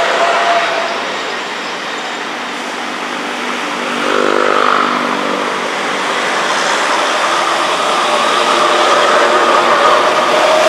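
Track recording car rolling slowly through depot pointwork, its engine running, with long high wheel squeals on the curved track from about seven seconds on.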